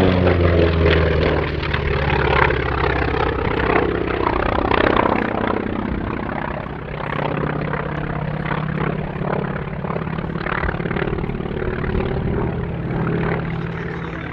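Grumman Wildcat's radial engine and propeller running hard during an aerobatic display. The engine note falls as the aircraft passes near the start, then carries on as a steady drone whose pitch shifts as the plane manoeuvres.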